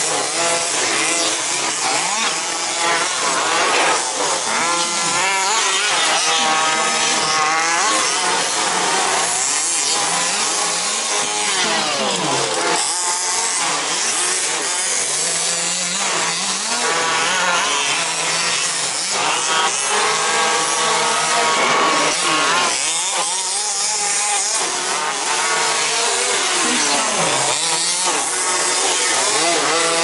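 Several 2WD radio-controlled racing buggies running together, their motors whining and gliding up and down in pitch again and again as they accelerate and brake around the track.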